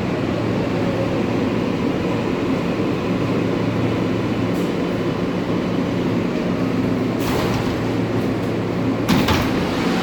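An R143 subway car's steady hum. About seven seconds in there is a short hiss, and about nine seconds in a louder, sharp burst of hiss with a thud.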